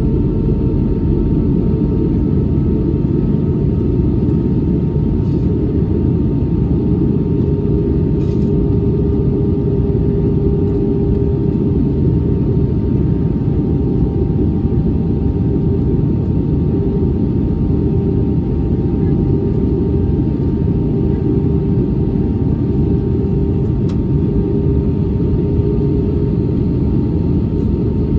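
Steady cabin noise inside an Airbus A320-232 airliner on approach: a dense, even rumble of airflow and its IAE V2500 engines, with a few faint steady tones over it.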